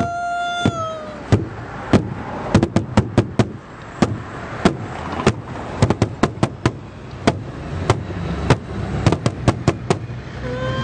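A man's sung note held and sliding down, ending about a second in. Then irregular strikes on a large hide-headed drum beaten with two wooden sticks, some single and some in quick runs.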